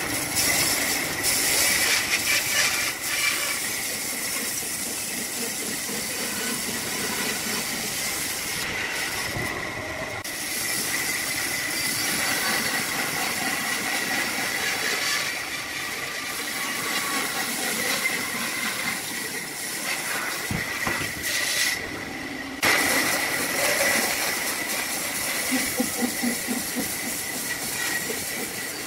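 Bandsaw blade cutting through a thick log: a steady hiss of the cut with a high whine running through it, easing briefly about two-thirds of the way through.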